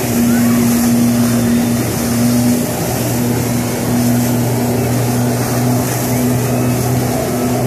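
Personal watercraft engine running steadily, driving a flyboard through its hose, with the rush of the flyboard's water jets.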